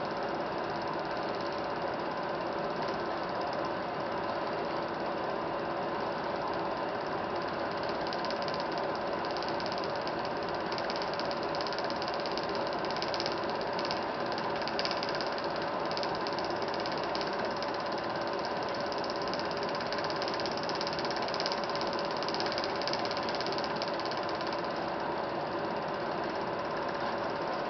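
Film projector running: a steady mechanical whir with a fast, even clatter from the film transport.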